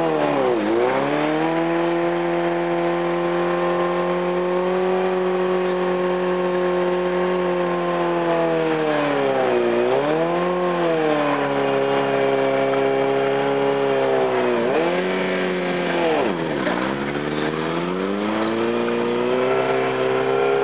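Sport bike engine held at high revs during a stationary burnout, the rear tire spinning against the pavement. The revs drop sharply and climb back about four times.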